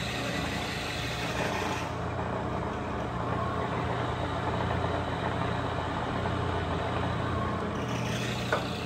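Clausing 15 drill press, with its 3/4 horsepower single-phase motor, running with a steady hum while its variable-speed dial is turned; the higher part of the sound drops away about two seconds in and comes back near the end. A single click comes shortly before the end.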